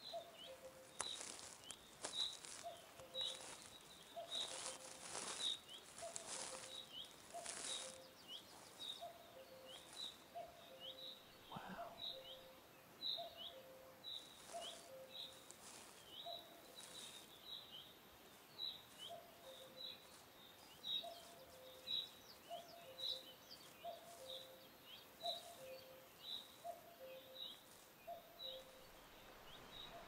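Birds chirping over and over, short high chirps about twice a second, with a lower two-note call repeating about once a second beneath them. A few brief hissy rustles come in the first several seconds.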